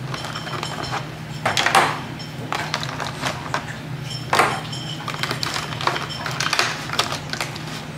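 Eggs being lifted from a clear plastic clamshell carton and set into a plastic egg tray: irregular light clicks and taps of egg shell and plastic, a few louder knocks among them, over a low steady hum.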